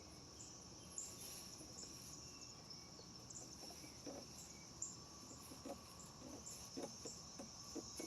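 Insects chirping steadily in a high, even drone, with a few faint knocks in the second half.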